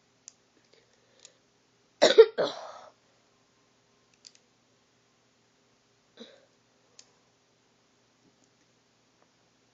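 A person coughs twice in quick succession, loudly, about two seconds in. Faint clicks of small Lego pieces being handled come a few times before and after.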